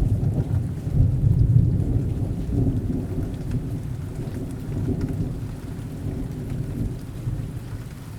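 Rain falling with a long low rumble of thunder that swells about a second in and slowly dies away.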